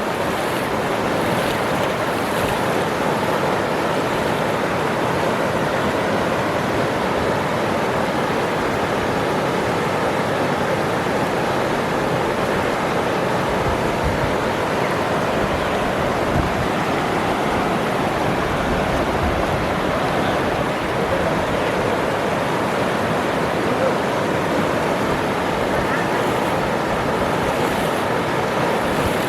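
Waterfall, its falling water making a steady, unbroken rush.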